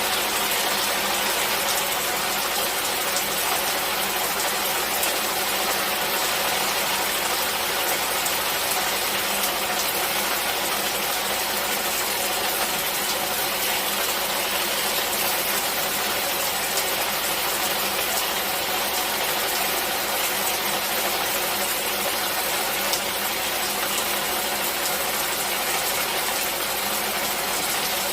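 Steady rain falling, an even hiss with fine pattering and no pauses. A faint steady hum lies underneath.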